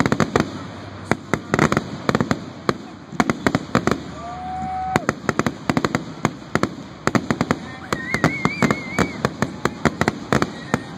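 Fireworks going off in quick succession: a dense run of sharp bangs and crackles, with a short steady tone about four seconds in and a high warbling tone about eight seconds in.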